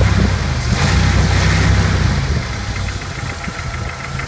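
Jeep 2.5-litre four-cylinder engine idling a little cool, with a light, rapid ticking from the valvetrain that the owner puts down to flat or worn lifters. The engine's rumble is heavier for the first two seconds or so, then settles.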